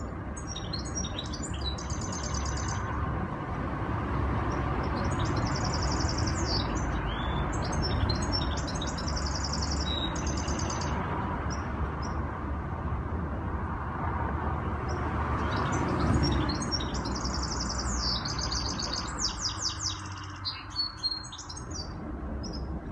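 Caged goldfinch mule (goldfinch × canary hybrid) singing in several bursts of fast, high twittering song with rapid trills, the longest run coming in the last few seconds. A steady low rumble runs underneath.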